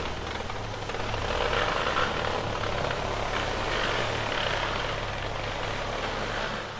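Porsche 992 Turbo S twin-turbo flat-six with a Capristo exhaust idling steadily between dyno pulls, a constant low hum with no revving.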